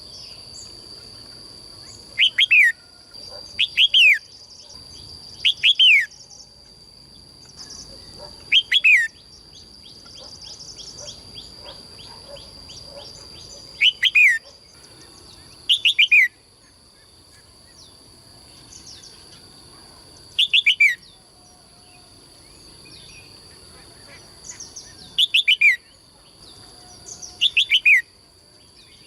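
A songbird calling over and over: short, loud calls of two to four quick notes, each falling in pitch, repeated every two to three seconds. A steady high whine runs underneath, with a short fast ticking trill about ten seconds in.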